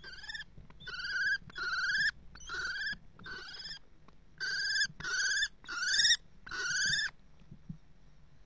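Common kestrel calling: about nine drawn-out, wavering calls of about half a second each, in quick series with a short break in the middle, stopping near the end.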